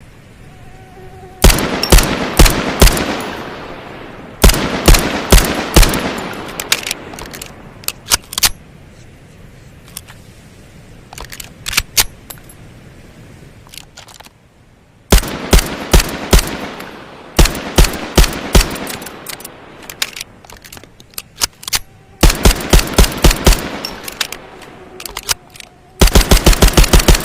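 Suppressed Tokarev TT-33 pistol (7.62×25mm) shots in quick groups of three or four, each with a short decaying tail. A few lighter clicks fall between the groups, and a fast string of shots comes near the end.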